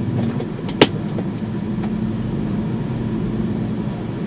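A car's engine and road noise heard from inside the cabin as a steady low hum, with one sharp click just under a second in.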